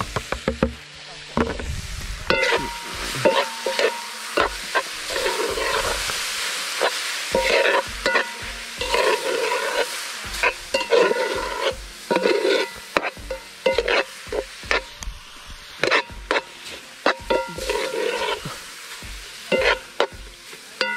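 A metal cooking pot of vegetable chunks being stirred over a wood fire. A spoon scrapes round the pot in repeated strokes, about every second and a half, and knocks and clinks against the metal, some clinks ringing briefly, over a steady hiss.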